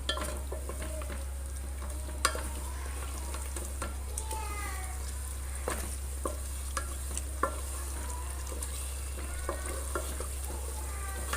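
Chicken and almond-paste gravy frying on a high flame with a steady sizzle, while a spatula stirs it and knocks against the pan in scattered sharp clicks.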